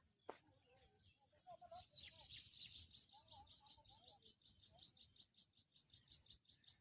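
Faint bird chirping: from about a second and a half in, a quick, even series of high chirps, with a few softer lower calls among them.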